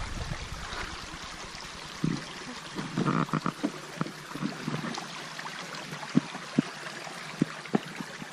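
Creek water running steadily, with a few scattered short clicks and knocks over it.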